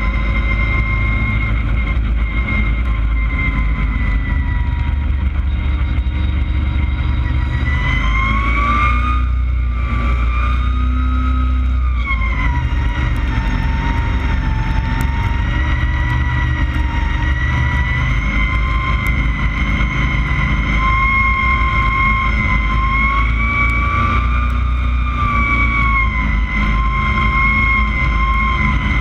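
Street stock race car running at racing speed, heard from inside the cockpit: a deep engine rumble under a high whine. The whine climbs about eight seconds in, drops back around twelve seconds, then wavers gently up and down.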